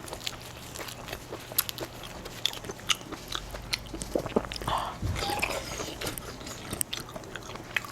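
A person chewing and biting food close to the microphone: many short, irregular clicks and crunches of eating.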